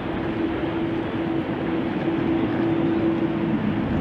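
Jet airliner engines running at taxi power: a steady rumble with a low hum that shifts slightly near the end.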